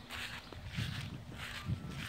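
Faint footsteps walking on grass, about two steps a second.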